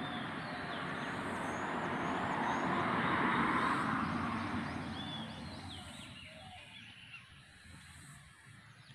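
A rushing noise swells to a peak about three and a half seconds in, then dies away over the next few seconds. Small birds chirp over it throughout.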